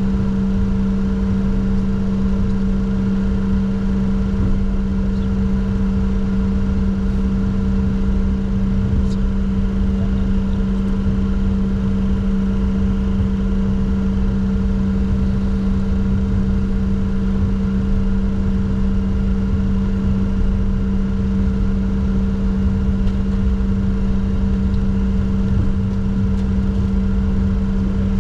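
Steady cockpit noise of a Bombardier Challenger 604 business jet: a constant low hum with a second, fainter tone above it, over an even rumble.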